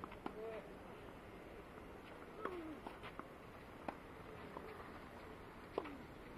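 Tennis rally: sharp racket-on-ball hits a second or two apart, with tennis shoes squeaking on the court between them.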